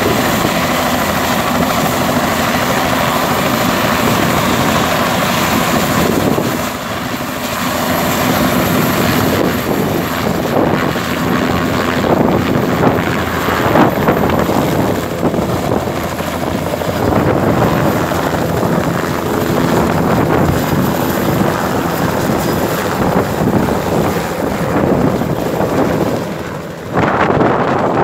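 Light helicopter with a two-blade main rotor running at take-off power, lifting off the pad and flying away: steady rotor chop and engine noise with a thin high whine over it. Near the end a sudden louder rush of noise.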